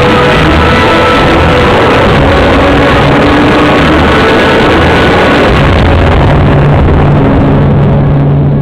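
Loud, dense music with held notes, rock-like with guitar.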